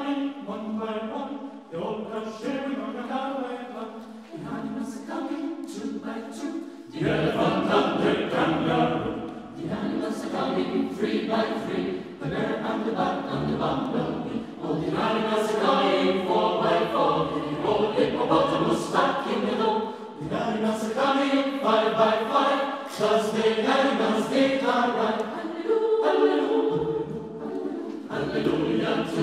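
Mixed choir singing a cappella in several parts, a spiritual arrangement. About seven seconds in the sound grows fuller and louder as low voices join.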